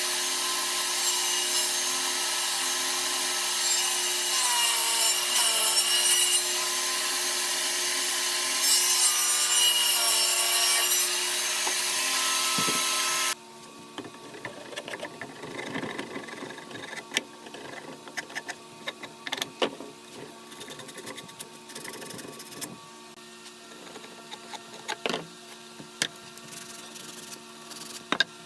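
Power sander running on wood with a steady, hissing grind that stops abruptly about 13 seconds in. Quieter scraping, rubbing and light knocks of wood being handled follow.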